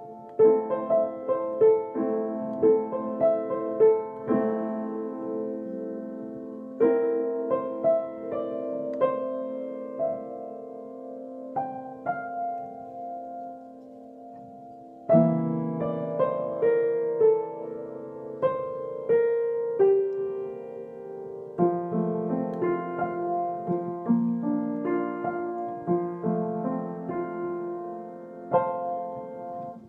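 Upright piano played solo: a slow melody over held chords. It grows quieter, then comes back louder with deeper bass notes about halfway through, and dies away at the very end.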